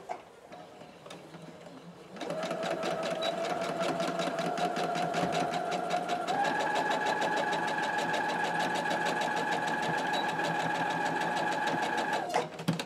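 Electric sewing machine stitching through layers of fabric and batting, starting about two seconds in and running at a steady, rapid stitching rhythm. It picks up speed a little about six seconds in, then stops shortly before the end.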